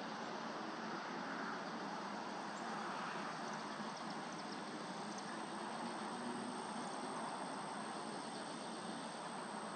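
Steady, even outdoor background noise, a low hiss with no distinct events, and a few faint high ticks about three to five seconds in.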